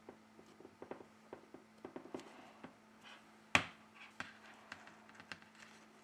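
Small clicks and taps of a phone and thin plastic opening tools being handled, with one sharper click about three and a half seconds in.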